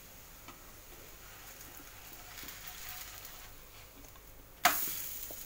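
Besan cheela (gram-flour pancake) sizzling faintly in a nonstick frying pan while a spatula is worked under it. Near the end it is flipped and lands in the pan with a sudden slap and a burst of sizzling that fades.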